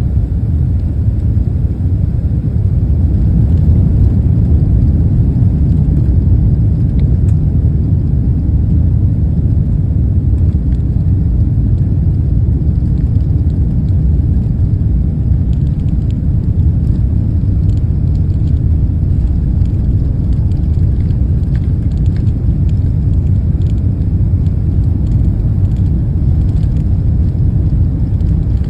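Airbus A380's four jet engines at takeoff power: a loud, steady low rumble.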